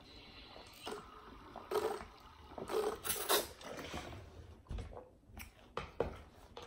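A man gulping water from a plastic sports bottle, followed by a few louder breaths or mouth sounds and, in the second half, several short sharp clicks.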